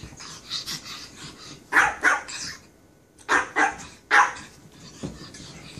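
Japanese Chin barking in play: about five sharp, short barks in two bursts, a pair about two seconds in and three more between three and a half and four seconds in, with a few softer ones around them.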